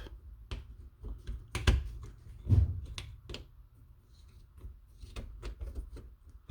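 A flashlight being handled: scattered small clicks and light knocks of metal and plastic parts, with two louder thumps about a second and a half and two and a half seconds in.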